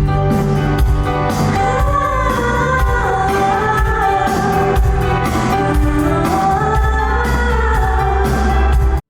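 A pop song performed with a woman singing over a full backing of bass and drums. The sound cuts off abruptly near the end.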